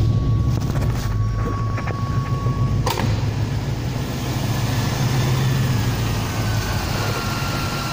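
GM 350 TBI small-block V8 running steadily just after start-up, with ATF mixed into its oil to free collapsed hydraulic lifters. A steady high beep sounds over it for the first three seconds and stops with a click.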